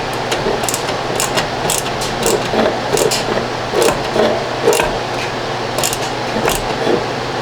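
Hand work on a power supply's new cooling fan: a string of light, irregular clicks and creaks over a steady background hum.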